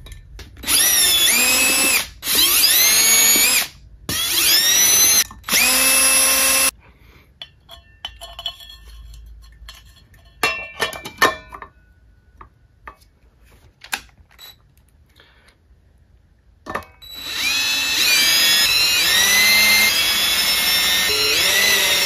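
DeWalt cordless drill-driver with a Phillips bit running screws in a ceiling fan's metal motor housing. It runs in four short bursts in the first several seconds, its motor whine rising and falling. Then comes a stretch of small clicks and knocks of metal parts being handled, and near the end one long run as the screws are driven home.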